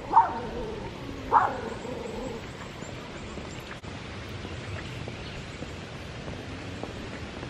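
A dog barking twice, about a second apart, followed by steady background noise.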